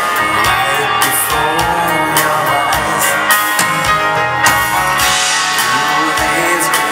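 Live dance band playing a foxtrot through the hall's PA: electric guitar, keyboards, bass and drums with a steady beat.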